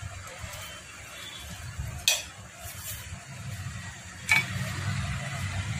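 A metal hand tool working on a Bajaj Pulsar 150's engine, with two sharp metallic clicks about two and four seconds in. A low steady hum gets louder after the second click.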